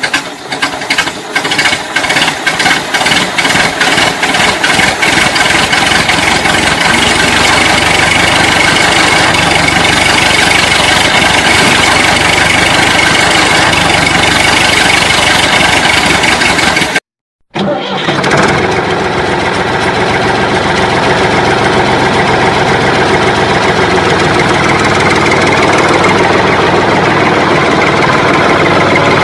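Engine starting with a quick run of regular knocks, then running steadily; it cuts out abruptly for about half a second after about 17 seconds and then runs on.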